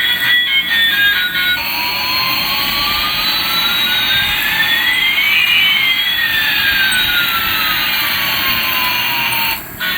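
Jet-engine sound: a steady rushing hiss with two whining tones, one rising and one falling, crossing about midway. It cuts off suddenly just before the end. Music with plucked notes plays for the first second and a half.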